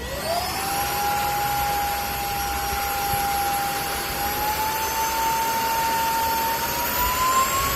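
Airbot Hypersonics Max cordless stick vacuum cleaner switching on, its high-speed motor spinning up to a high whine within half a second and then running steadily. The pitch steps up slightly about four seconds in and again near the end.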